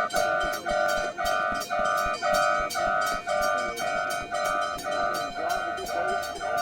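Japanese level-crossing warning bell ringing, an electronic two-tone clang repeating about twice a second, growing slightly fainter.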